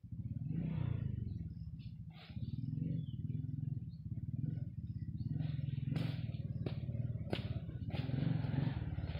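A small engine running steadily, with a fast, even low pulse. A little past the middle come four sharp knocks in quick succession from a hand hoe striking the soil.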